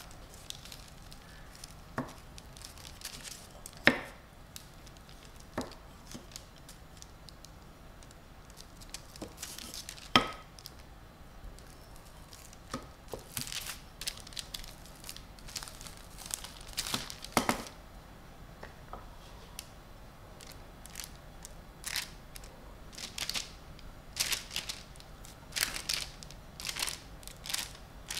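Baking parchment crinkling and rustling under hands pressing, stretching and rolling out pizza dough on a wooden board. A few sharp knocks stand out, the loudest about four and ten seconds in, and the rustles come thicker toward the end.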